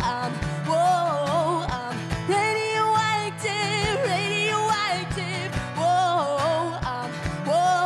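Live acoustic music: a woman singing long held notes with vibrato over a strummed acoustic guitar, with a cajon keeping a steady beat of low thumps.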